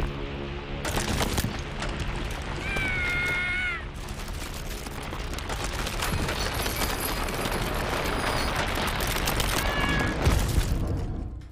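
Animated sound effects of a giant ocean liner's hull ploughing through ice: a dense run of crunching and crashing. A high, shrill squeal rises and falls about three seconds in, and a shorter one comes near the end.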